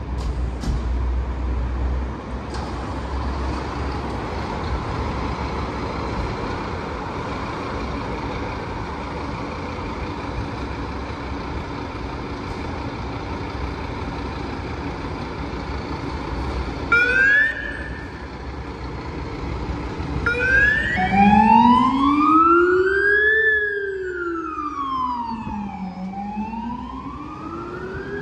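Steady rumble of engine and street noise. About seventeen seconds in, a fire engine's siren gives a short rising blip. From about twenty seconds in it sounds a slow wail, rising and falling roughly every five seconds, doubled by the low-pitched Rumbler siren sweeping the same pattern below it.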